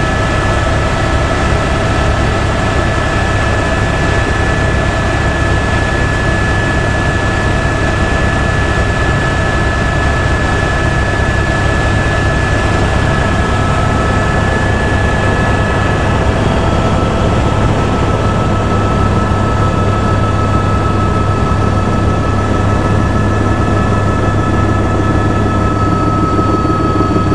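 Helicopter in flight heard from inside the cabin: the turbine engine and rotors make a steady, loud drone with a constant high whine.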